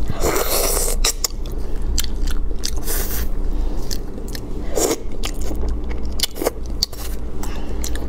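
Close-up mouth sounds of a person biting and chewing braised anglerfish, with many sharp wet clicks and short noisy bursts. A steady low hum runs underneath.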